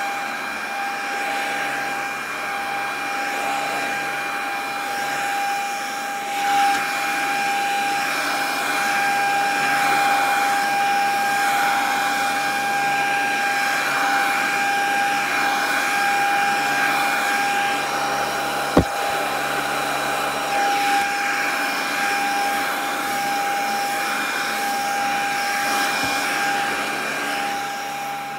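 Handheld bedding vacuum cleaner running steadily with a high motor whine as it is pushed over a mattress pad and pillow. A single sharp click about two-thirds of the way through.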